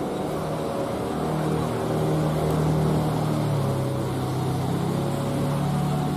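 Diesel-hauled passenger train running along the track with a steady low engine drone and wheel rumble. The drone's pitch steps up about a second in and shifts again about halfway through.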